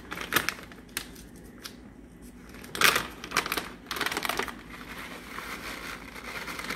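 Plastic bag of shredded Parmesan cheese being pulled open: crinkling with a run of sharp clicks, then a softer rustle in the last couple of seconds as the cheese is shaken out into a steel mixing bowl.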